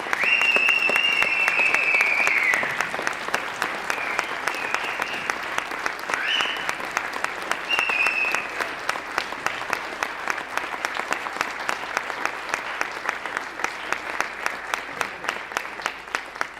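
Audience applauding, with several shrill whistles over the clapping in the first few seconds. The applause thins toward the end into fewer, more evenly spaced claps.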